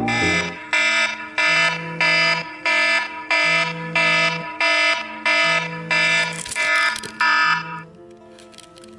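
Smartphone alarm ringing: a loud repeating electronic tone, about two pulses a second, that stops near the end.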